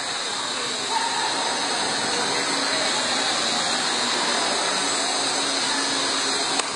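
Steady wash of sports-hall ambience: spectators' murmur and room noise. A single sharp tap near the end, a racket striking the shuttlecock.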